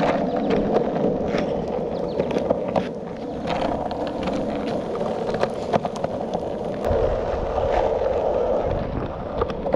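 Longboard wheels rolling over asphalt: a steady rolling rumble with frequent small clicks and ticks. A deeper rumble joins about seven seconds in.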